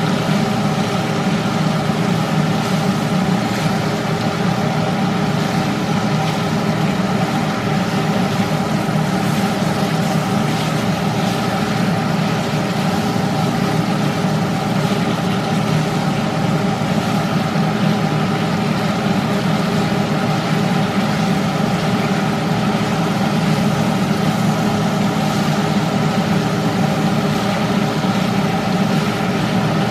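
Steady motor hum holding several fixed pitches, unchanging in level throughout.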